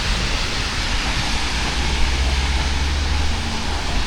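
Steady street noise of traffic and rain hiss, with a deeper rumble swelling for a couple of seconds in the middle as a vehicle passes.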